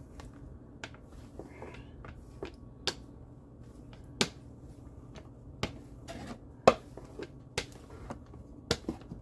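Sharp, irregularly spaced clicks and light knocks of kitchen utensils on a countertop, about eight in all, the loudest a little past the middle, over a faint steady hum.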